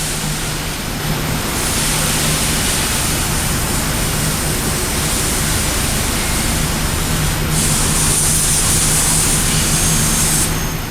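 Steady machine-shop noise: a constant low hum under a broad hiss, with a brighter high hiss that shifts about a second and a half in and again later, dropping away near the end.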